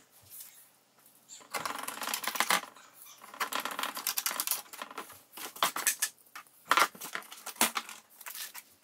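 Phillips screwdriver and small screws clicking, scraping and rattling against a plastic grille as a letter insert is screwed in from the back, in irregular bursts of ticks.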